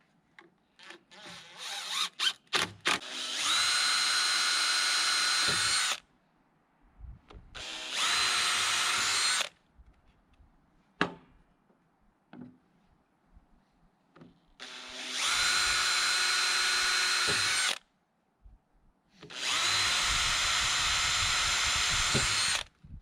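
Handheld power drill running in four bursts of two to three seconds each. Each burst quickly climbs to a steady whine, with light knocks and clicks between the bursts.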